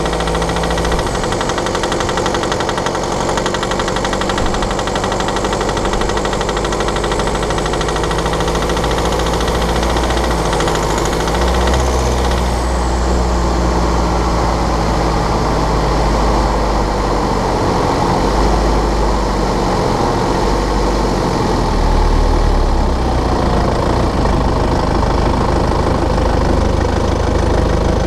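BMW 520d's N47 2.0-litre four-cylinder diesel running with a fast rattling, ticking noise, the noise this engine makes when cold and under load around 1500 rpm. The owner traces it to a faulty injector.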